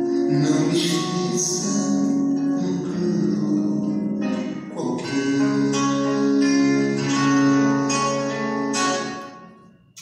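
Music with held notes, fading out about nine seconds in.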